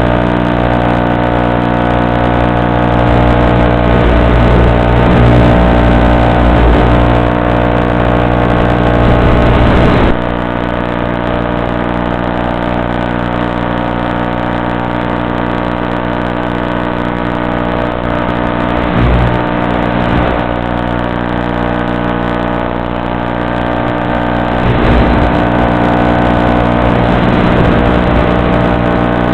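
Electric motor and propeller of an RC model plane running under power, heard through the onboard FPV camera's microphone as a steady buzzing drone of many tones. About ten seconds in it drops in level as the throttle is eased back.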